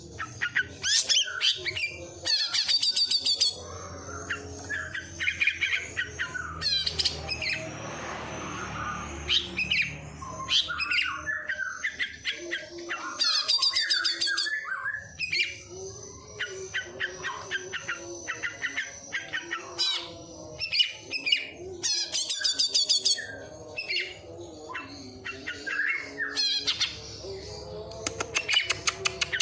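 A caged songbird singing a long, varied song of sharp chirps and fast buzzy trills, mimicking the calls of sparrows and prenjak.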